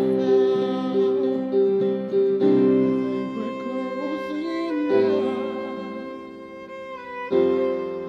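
Violin playing a melody with vibrato over acoustic guitar and electronic keyboard chords. The held chords change about every two and a half seconds.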